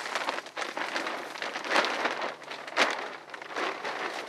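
Large heavy-duty plastic bag crinkling and rustling as it is pulled down over a leafy sapling, with louder crackles about two and three seconds in.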